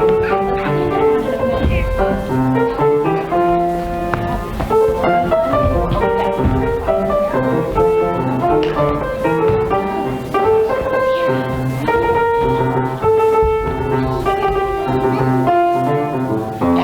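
Instrumental music with piano and bowed strings playing continuously.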